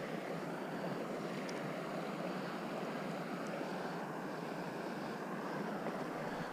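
Steady rushing of shallow creek water flowing over a riffle, even and unbroken.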